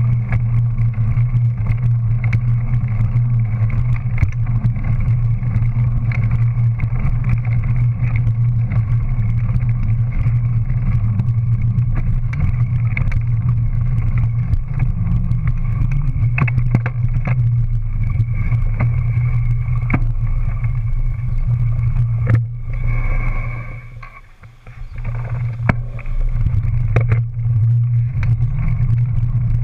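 A small motor drones at a steady pitch while the ride rolls along, over the hiss of the tyre on pavement. It drops away for about two seconds roughly three-quarters of the way through, then comes back at the same pitch.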